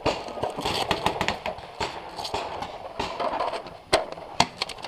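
Paintball markers firing single shots: a few sharp pops at irregular intervals, the loudest about four seconds in, over rustling movement noise.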